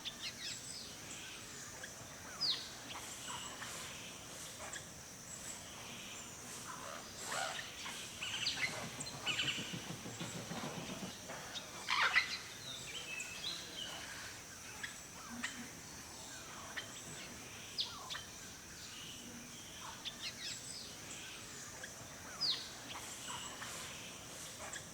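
Forest birds chirping and calling in short notes and quick downward-sweeping whistles, the loudest burst about halfway through, over a steady high hiss.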